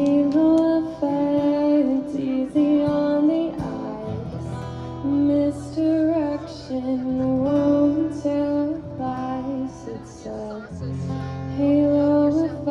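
A woman singing long held notes over acoustic guitar in a live performance.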